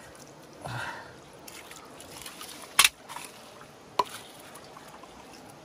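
Hands rummaging through wet mud and tangled twigs and dead leaves in shallow water, with faint trickling and two sharp clicks a little over a second apart near the middle.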